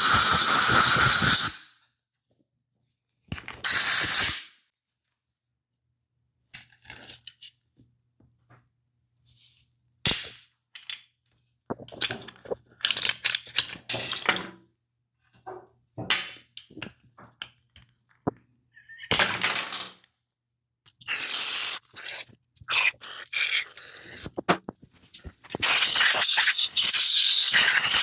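Hissing spray in bursts: a burst of about a second near the start, another around four seconds in, and longer spraying over the last several seconds. Between them come small clicks and knocks of parts being handled.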